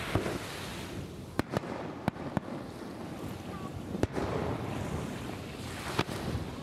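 Aerial firework shells bursting: a series of sharp bangs at uneven intervals, four in the first two and a half seconds, then one about four seconds in and another about six seconds in.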